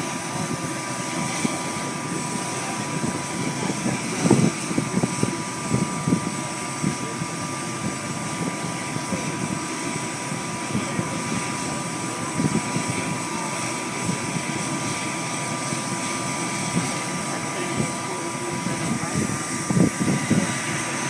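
Sikorsky MH-60 Jayhawk helicopter's turbines running on the ground before take-off, giving a steady whine of several held tones. Under the whine runs an uneven low rumble that swells about four seconds in and again near the end.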